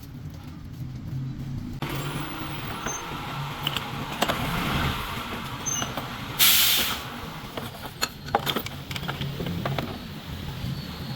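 Truck repair workshop noise: a steady low hum with scattered metal clicks and knocks, and one short, loud hiss of air about six and a half seconds in.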